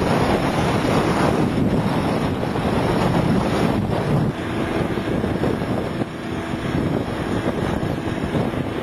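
Strong wind buffeting the microphone in uneven gusts, with a low vehicle engine rumble underneath.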